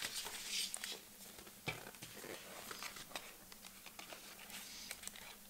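Clear plastic cover-on-cover being handled on a hardcover notebook: soft rustling and sliding of the plastic, with a few light taps.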